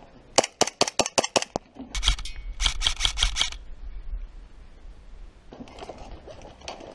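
Airsoft guns firing in two rapid bursts of sharp shots, one in the first second and a half and another from about two to three and a half seconds in.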